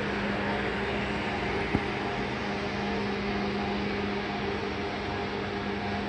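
Industrial agitator with three-bladed wide-blade axial-flow turbine impellers running in air on a no-load trial: a steady hum with one constant low tone over an even rush of noise. One sharp click a little under two seconds in.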